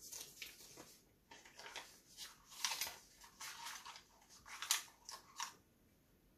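Printed paper picture crinkling and rustling as it is bitten off and chewed, in an irregular run of crackly rustles that stop near the end.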